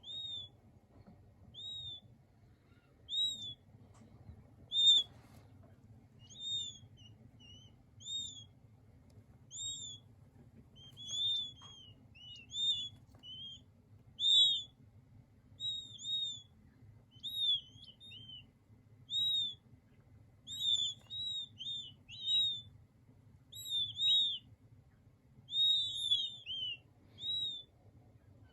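King quail chicks peeping: short, high, arched peeps repeated about every second, coming faster and overlapping in the second half.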